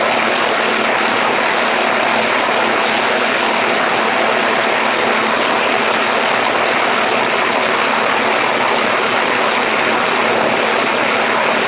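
Steady rush of airflow buffeting a camera microphone on the lift strut of a Cessna 172 in flight. The diesel engine and propeller run faintly and evenly underneath.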